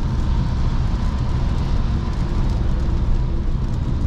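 Inside the cabin of a Volkswagen Passat cruising at about 120 km/h on a wet motorway: steady low tyre and road rumble with the hiss of rain and spray.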